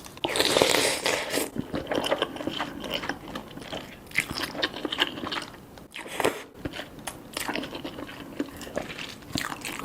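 Close-miked eating of cheesy spicy Korean noodles: a loud rushing slurp lasting about a second near the start, then steady chewing with many small wet clicks and smacks.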